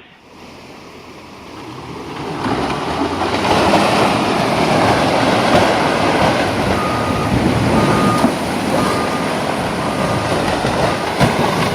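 A loud, rough rumbling noise builds over about two seconds and then holds steady. In the second half, a machine's electronic warning beeper sounds about once a second, four or five times.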